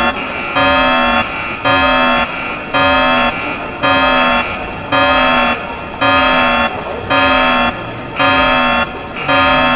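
Synthesized emergency-alert alarm tone repeating about once a second: a loud half-second burst of several tones warbling quickly down and up, then a softer, lower tone sliding down.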